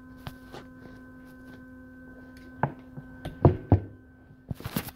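Phone being handled up close: scattered clicks, then a few sharp knocks and thumps about three and a half seconds in, and a brief rubbing scrape near the end, over a steady electrical hum.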